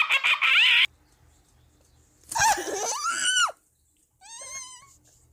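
High-pitched squealing laughter that cuts off under a second in. Then a loud, arching shriek lasting about a second, and a quieter wavering squeal.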